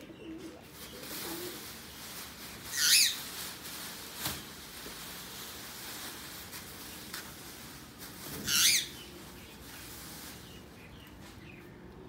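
A large plastic sheet rustling and crinkling as it is pulled off a pigeon cage, with two short, loud flurries about three seconds and nine seconds in.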